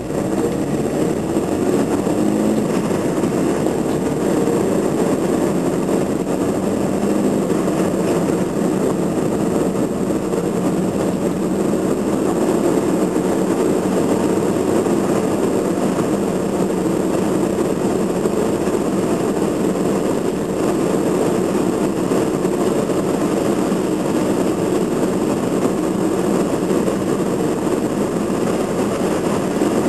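Steady engine and tyre noise of a car driving at speed, heard from inside the cabin.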